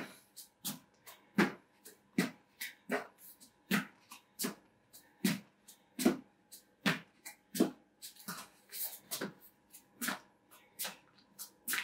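A person doing frog jumps: a steady run of short landing thuds and hard breaths, roughly one every three-quarters of a second.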